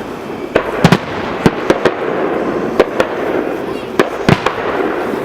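Aerial fireworks bursting: about a dozen sharp bangs in an irregular string, some in quick pairs, over a steady background of crowd voices.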